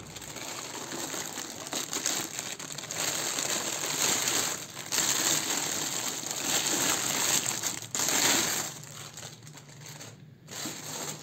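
Thin plastic bag crinkling and rustling as a trim router wrapped in it is lifted out and unwrapped. It is busy for about the first eight seconds and then dies down to softer, occasional rustles.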